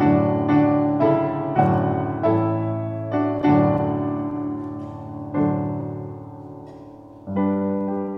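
Grand piano played solo: slow chords, each struck and left to ring and fade. One long chord dies away in the middle before a new chord is struck near the end.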